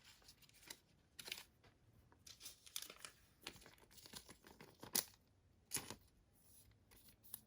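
Trading cards and their pack being handled: irregular crinkling rustles and light clicks, with a sharper click about five seconds in.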